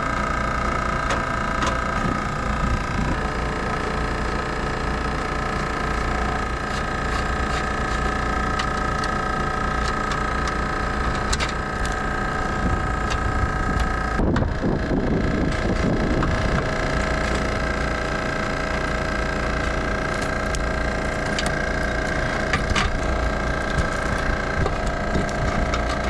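Refrigerant recovery machine running steadily, its motor and compressor pulling the old refrigerant out of the air conditioning system into a recovery tank. Its hum shifts in pitch about halfway through, with light clicks of hands handling wiring over it.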